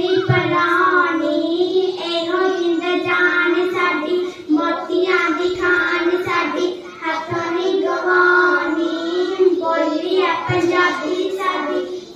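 A child singing a song, line after line with short pauses for breath.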